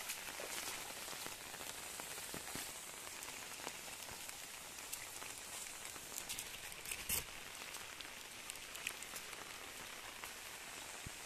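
Steady rain falling on leaves and vegetation, a constant hiss dotted with scattered drip taps, with one louder tap about seven seconds in.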